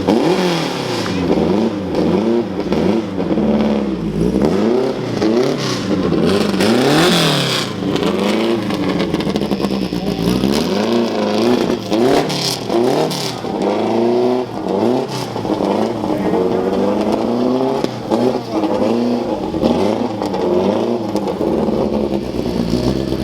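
Car engine revved over and over on the throttle, its pitch rising and falling again and again about once a second.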